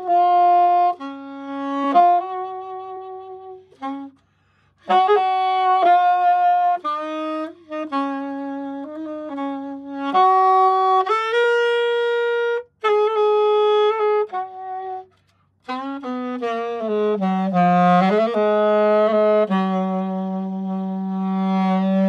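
A brand-new Yamaha YAS-280 alto saxophone played solo: a melody of held notes in phrases with short breaks about 4 and 15 seconds in, ending on a long low held note. The player finds some notes slightly sharp and others flat, and reckons the new horn needs tuning.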